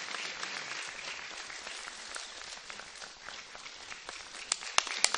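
Audience applauding, a steady patter of many hands. Near the end a few sharper, louder claps stand out.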